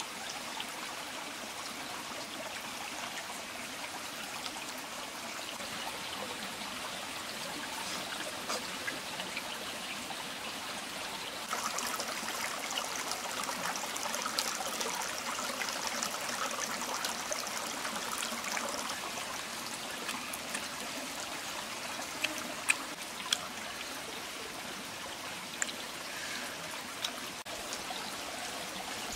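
Steady trickling rush of a small stream, its hiss growing brighter for several seconds midway, with a few sharp clicks near the end.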